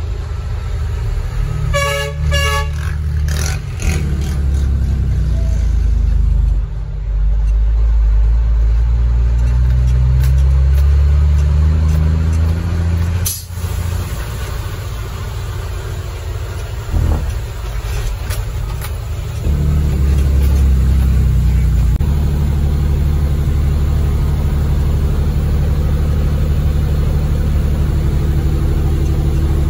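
A horn gives a few short toots about two seconds in. Then a heavy truck diesel engine, a 400 hp Cummins ISM in an International ProStar, pulls hard with its pitch rising. The sound dips twice near the middle, then the engine runs steadily and loudly.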